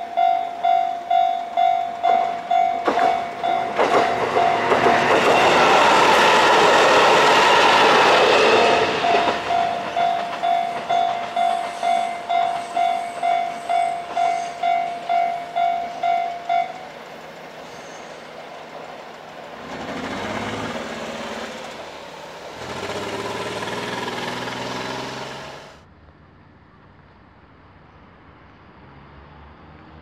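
Railway level-crossing warning bell ringing about twice a second, with a train passing loudly from about three to nine seconds in. The bell stops about two-thirds of the way through. Engine noise then swells twice before the sound drops suddenly to a faint background.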